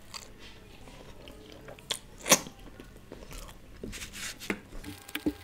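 Close-up chewing and mouth sounds of a person eating flatbread, with scattered short wet clicks and smacks, the sharpest about two seconds in.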